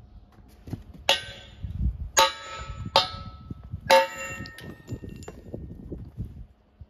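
Four sledgehammer blows on steel, each a ringing metallic clang, struck to drive out a rust-seized pin. The fourth, a little under four seconds in, is the loudest and rings longest.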